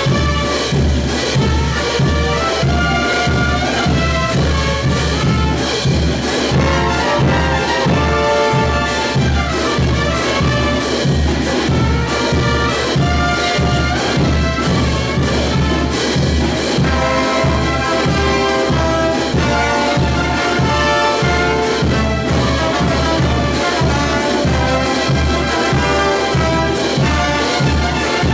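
Brass band playing a morenada, trumpets and trombones over a steady drum beat.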